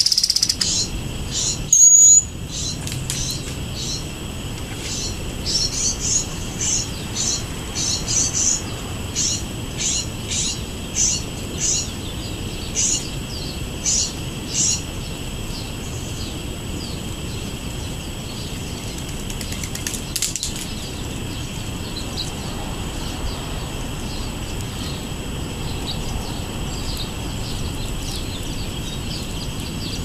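Small songbirds chirping, a run of short high chirps about two a second lasting around ten seconds, over a steady high-pitched hiss. A single sharp whistled note about two seconds in.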